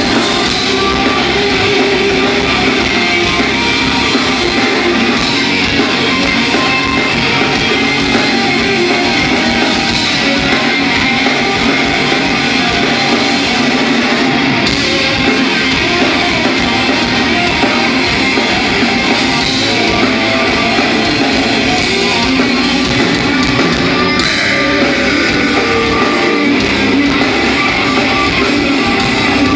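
Heavy rock band playing live: electric guitars, bass and drums, loud and steady.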